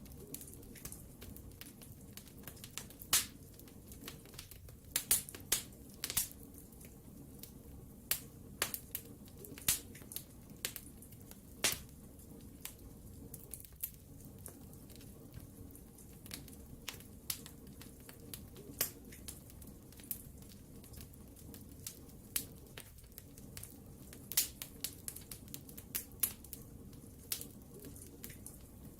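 Wood fire burning in a fireplace: irregular sharp crackles and pops, a few a second, over a low steady rumble of the flames.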